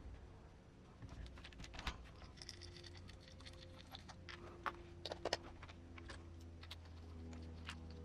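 Scattered light clicks and taps of small plastic and metal RC crawler parts being handled as the wheels are fitted and their nuts threaded on by hand, over a faint steady low hum.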